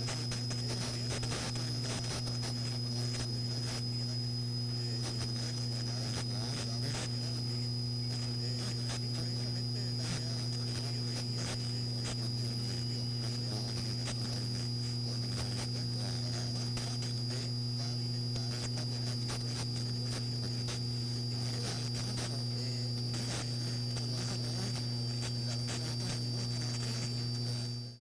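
AM radio static: a steady low hum and a thin high whistle that drifts slowly down in pitch, with dense crackling and faint garbled speech beneath. It cuts off at the very end.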